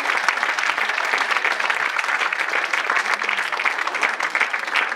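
An audience applauding, a dense, steady round of clapping.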